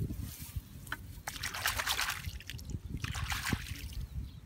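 Bare hands digging and scooping in waterlogged mud and shallow water, splashing and trickling in two spells.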